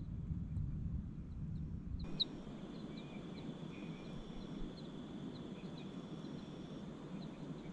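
Night insects chirping: short high chirps about twice a second with a steady high trill behind them. A low rumble fills the first two seconds, then gives way to a soft steady hiss.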